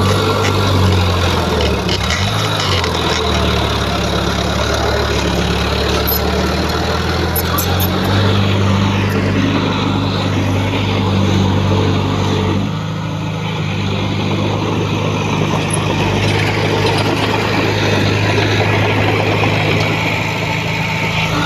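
Diesel engine of heavy earthmoving equipment running steadily, its pitch shifting a few times as the load changes, with a brief drop in loudness about halfway through.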